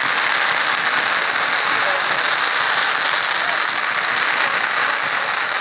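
Fireworks display: a dense, steady crackling and hissing from many rising rockets at once, with no single loud bang standing out.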